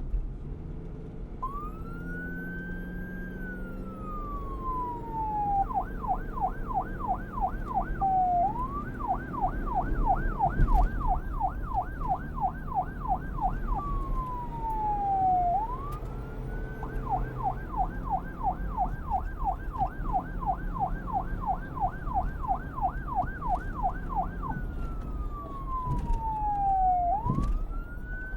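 Police car siren alternating between wail and yelp: slow long rises and falls in pitch, broken by stretches of fast warbling sweeps at about four a second. A low vehicle rumble runs underneath.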